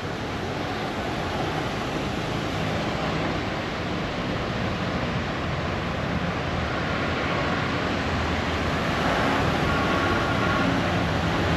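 Steady rush of road traffic with a low engine hum, growing slightly louder toward the end.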